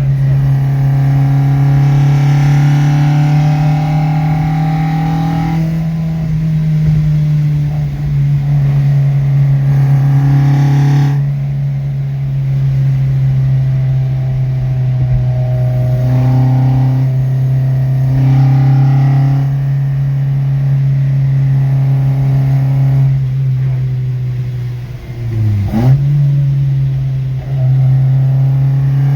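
Car engine running at fairly steady revs while driving. About 25 seconds in, the revs briefly drop and climb again.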